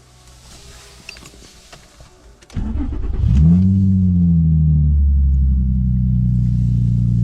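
Nissan 350Z's 3.5-litre V6, fitted with test pipes and no muffler, cranking briefly and catching about two and a half seconds in, flaring up in revs and then dropping to a steady, loud idle on a fresh base tune.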